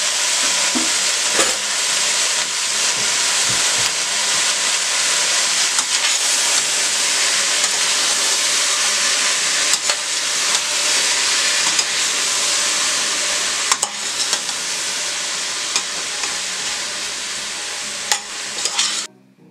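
Chopped onions, celery and green peppers sizzling as they fry in a stainless steel pot, stirred with a metal spoon that knocks lightly against the pot now and then. The sizzle stops abruptly just before the end.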